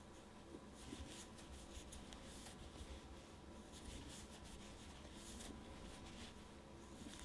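Faint, irregular scratchy rustling of a large wooden crochet hook being worked through chunky yarn as single crochet stitches are made, over a low steady hum.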